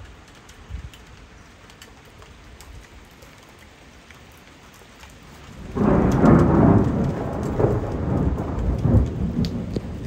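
Steady light rain with scattered drop ticks, then, about six seconds in, a sudden loud clap of thunder that rolls on as a rumble.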